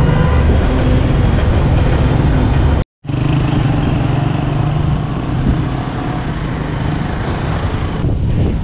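Road traffic noise: vehicle engines running and passing, with a steady low hum. It breaks off into a brief gap of silence about three seconds in, then carries on.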